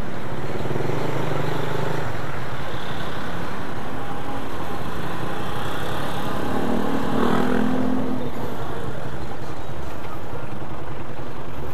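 Motorcycle engine running at low speed in slow city traffic, mixed with the engines of the vehicles around it. One nearby engine gets louder for a moment about seven seconds in.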